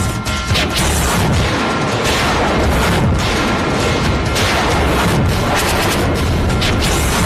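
Dramatic Indian TV-serial sound effects: loud crashing hits and booms layered over music, with several sharp hits in a row.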